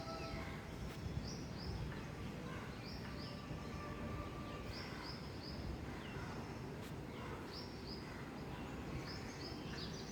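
A bird repeating short, high chirps in quick groups of two or three, about every second and a half, over a steady low rushing noise.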